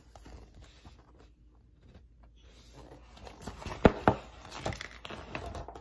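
Paper picture book being handled and its pages turned, a soft rustling with two sharp taps about four seconds in.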